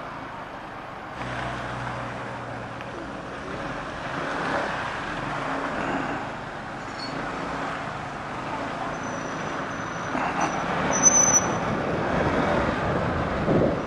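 Motorcycle engine running with road and wind noise. A brief high thin tone sounds about nine to eleven seconds in.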